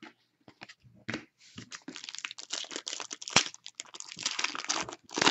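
Foil trading card pack wrapper being torn open and crinkled: a few light clicks, then from about a second and a half in a dense crackle, with one sharp crack in the middle.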